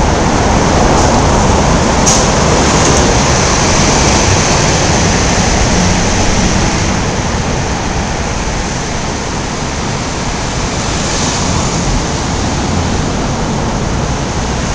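Traffic noise from cars and a truck driving through a concrete road underpass, a steady loud rush of tyres and engines that eases a little after the middle.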